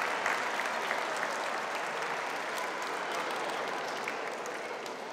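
Audience applauding, a dense, steady patter of many hands clapping that eases off a little near the end.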